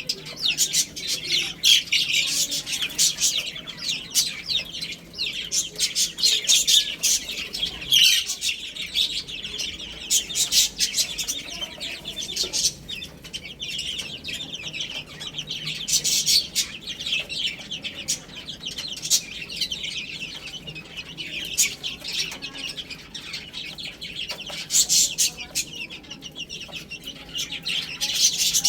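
A flock of baby chicks peeping continuously: a dense chorus of many high-pitched overlapping calls.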